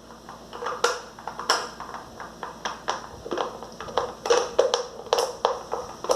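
Irregular sharp clicks and knocks of hard plastic parts of an Arno blender being handled and pried apart by hand, a dozen or so, some loud.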